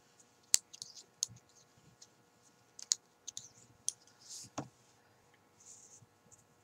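Metal knitting needles clicking against each other as stitches are worked: a handful of sharp, irregularly spaced taps.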